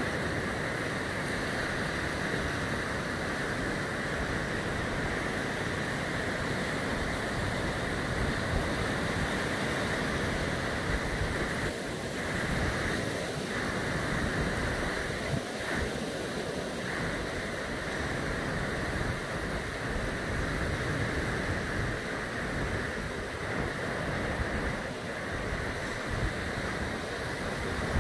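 Small surf breaking and washing up a sandy beach as a steady rush of noise, with wind rumbling on the microphone.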